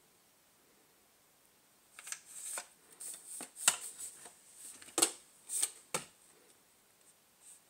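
Handling noise from the camera being moved: a run of quick rustles and sharp clicks that starts about two seconds in and dies away after about four seconds.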